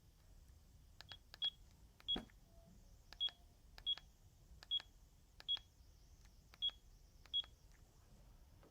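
Sagem myX-1 Trio mobile phone's keypad: about nine short, high key beeps at one pitch, each with a click of the button, pressed at an uneven pace as the menu is worked.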